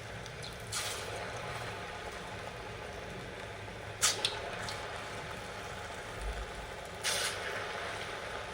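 Black-gram (mas dal) batuk fritters deep-frying in hot oil: a steady sizzle. A sharp clink comes about four seconds in, and the sizzle briefly surges about a second in and again near the end.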